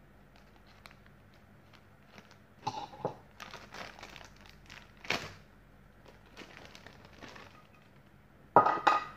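Thin plastic toy wrapper crinkling in several separate bursts as a toy is pulled out of it. The loudest crinkle comes near the end as the empty bag is handled.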